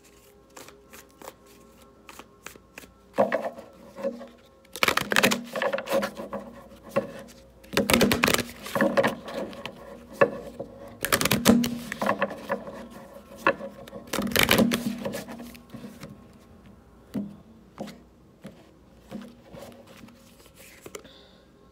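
A deck of oracle cards being shuffled by hand, passed from hand to hand in quick bursts of slapping and rustling card edges. The bursts are loudest and densest between about three and fifteen seconds in, with scattered lighter flicks before and after.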